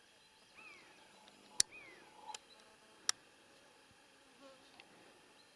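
Faint woodland ambience with two short falling chirps and two sharp clicks.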